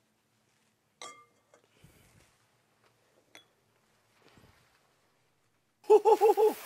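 A stainless steel mixing bowl set down with a single ringing clink about a second in, followed by faint rustling and a small click as a cloth tea towel is folded over the vegetables. Near the end a loud, rapid run of high, whinny-like giggling starts.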